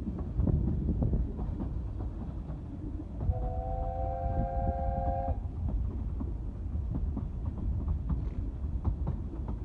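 Talyllyn Railway narrow-gauge train running along the track: a steady rumble with scattered clicks of the wheels on the rails. About three seconds in, the locomotive's whistle sounds one steady blast of about two seconds, several notes at once.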